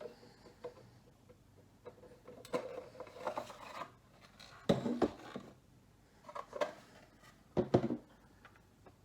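Hands handling and opening a boxed toy's packaging: rubbing and scraping with a few clicks, in several short bursts, the loudest about five and eight seconds in.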